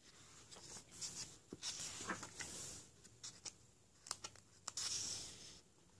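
Pages of a paperback book being turned and smoothed flat by hand: soft paper rustling and brushing with a few small ticks, and a longer swish of hands sliding across the page near the end.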